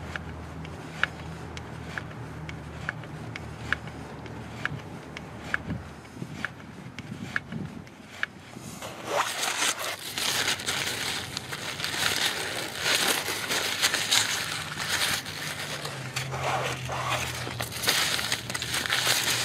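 Faint, evenly spaced clicks about once a second, then, from about nine seconds in, louder crinkling and rustling of a paper shop towel being handled around the grease fitting.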